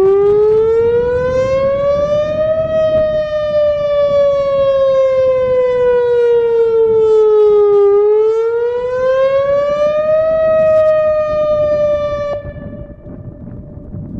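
Outdoor public warning siren sounding its test wail. The pitch rises for about three seconds, falls slowly for about five, rises again, then the siren winds down and fades near the end. This is a routine test of the emergency public warning system.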